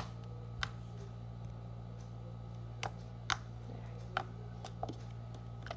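Stiff, putty-like mint slime being pressed and poked with fingers, giving short sticky clicks and pops at irregular moments, about eight in all. A steady low hum underneath.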